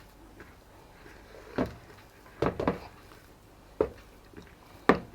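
A handful of sharp kitchen knocks and clunks, about five at irregular spacing, two of them in quick succession about halfway through.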